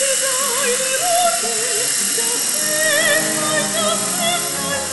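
Music with a singing voice that wavers in a strong vibrato, over a steady high hiss.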